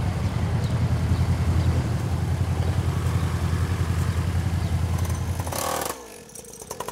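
Motorcycle engines running at low revs as the bikes ride slowly, a steady low rumble. It breaks off about six seconds in, just after a short burst of noise.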